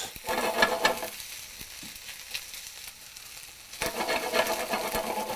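Sliced onions sizzling in oil in a hot stainless steel skillet while a wooden spoon stirs and scrapes them against the pan. The onions are just starting to sweat. The stirring is louder for about a second at the start and again from about four seconds in, with softer sizzling between.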